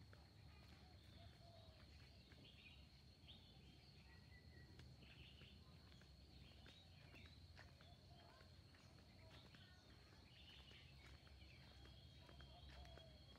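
Faint garden ambience: scattered short bird chirps over a steady, high-pitched whine.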